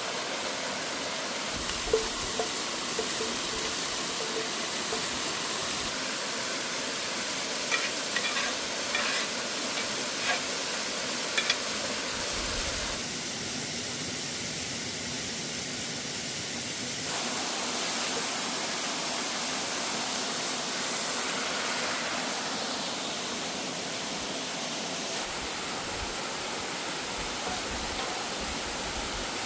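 Steady rushing of a waterfall, with food sizzling in a pan and scattered clicks and scrapes of a utensil stirring it, most of them about 2 seconds in and again around 8 to 11 seconds.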